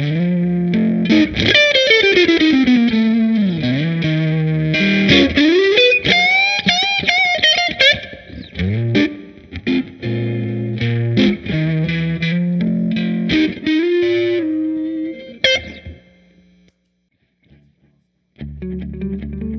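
Distorted electric guitar played through a Fender Blues Deluxe Reissue tube amp fitted with a Celestion Creamback speaker. It plays a lead line with wide pitch slides and bends, stops about sixteen seconds in, and after a short pause starts again with ringing chords near the end.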